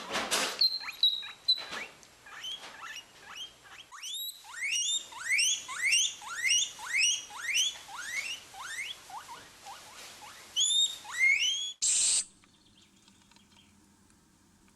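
An animal giving a long series of short, rising squeaky calls, about two a second, followed near the end by a brief loud hiss.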